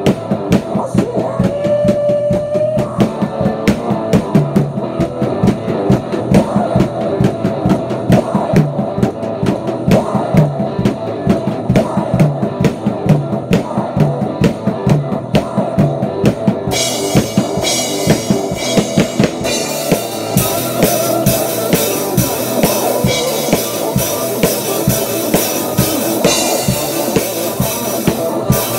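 Acoustic drum kit played in a steady rock beat, with bass drum and snare hits driving it. About two-thirds of the way through the cymbals open up and ring much louder over the beat.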